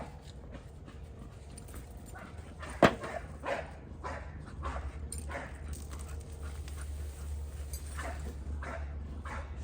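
Dogs barking again and again, worked up, with one much louder sharp sound about three seconds in and a steady low rumble underneath.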